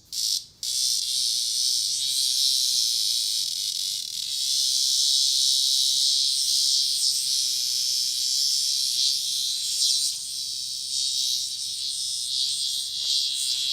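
Cicada buzzing loudly and continuously after two short buzzes at the start: the distress buzz of a cicada caught as a cat's toy.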